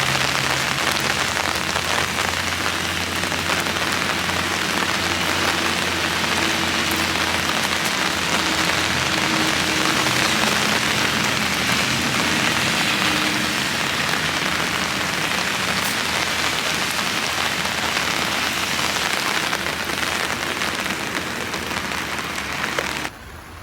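Steady heavy rain falling on a hard surface, with a faint low steady hum underneath. It cuts off abruptly about a second before the end.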